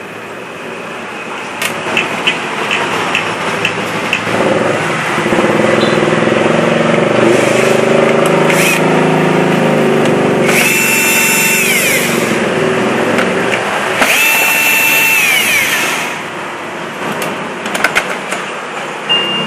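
Small electric screwdriver motor running in two short bursts, each spinning up, holding its pitch and winding down, over a steady low drone with a few small clicks.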